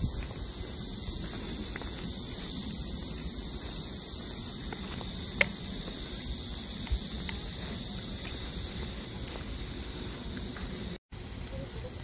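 Steady high-pitched drone of summer insects over a low rumble of wind on the microphone, with a single sharp click about five seconds in and a brief dropout near the end.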